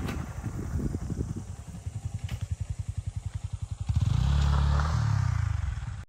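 Motorcycle engine running while riding, a fast, even low pulsing. About four seconds in it grows louder with a low rumble for a couple of seconds.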